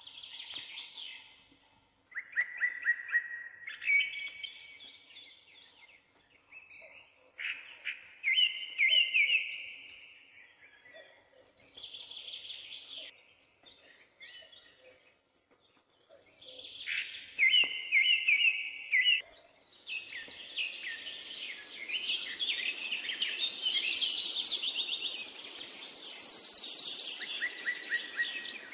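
Songbirds singing in short, trilled, repeated phrases every few seconds. About two-thirds of the way through the song becomes a denser chorus of overlapping calls with a steady hiss underneath.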